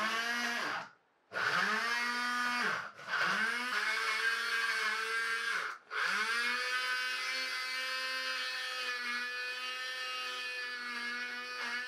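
Electric grinder-blender motor of a NIMA 2-in-1 juicer-grinder chopping sliced onion with a little water in its upper jar into paste. It runs in short pulses that spin up and wind down, three times, then runs steadily from about six seconds in.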